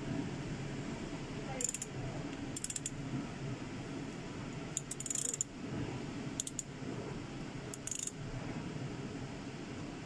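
Ratchet wrench clicking in about five short spells as it turns a four-cylinder engine's crankshaft by hand at the crank sprocket bolt, bringing the timing marks into line.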